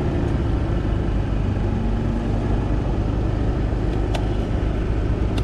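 Small 125 cc-class motorcycle riding at low speed: a steady engine hum and rumble with road noise.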